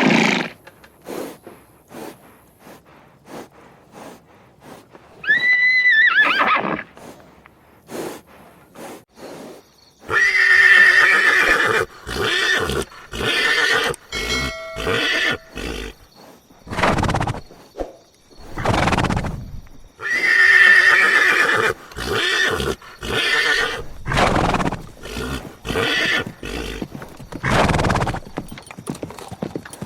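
Horses: hooves clopping in a steady run of sharp knocks, with a short whinny about five seconds in. Then two long, loud neighs about ten seconds apart, with many noisy snorting blasts between and after them.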